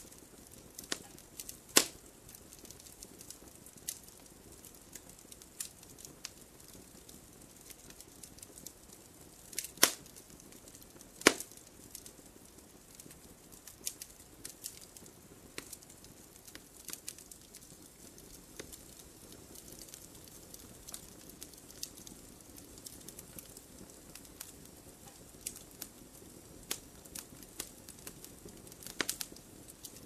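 Wood campfire crackling: scattered sharp pops and snaps over a soft, steady hiss of burning, with a few louder snaps and a quick run of them near the end.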